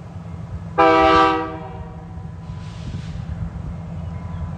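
Diesel locomotive's multi-chime air horn sounding one blast about a second in, lasting under a second, for the grade crossing ahead, over the steady low rumble of the approaching locomotive.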